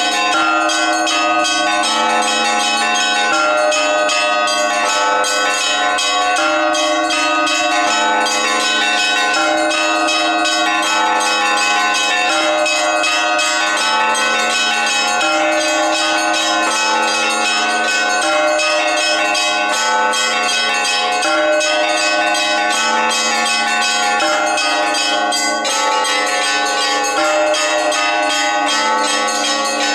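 Orthodox monastery bells ringing a peal: many bells of different pitches struck in quick, unbroken succession.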